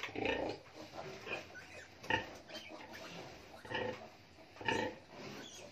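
Short pig calls from a nursing sow and her newborn piglets at the teats, grunts and higher squeals coming every second or so.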